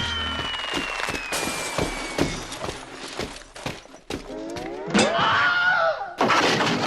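A rapid string of crashes, clatters and thuds, like things being knocked over and something breaking while someone rummages. A steady falling whistle tone runs through the first couple of seconds, and a wailing cry rises and falls about five seconds in.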